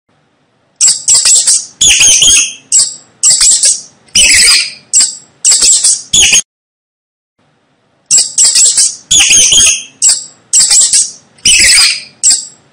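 Mice squeaking: a quick run of about nine short, high-pitched squeaks, a pause of about a second and a half, then the same run of squeaks again.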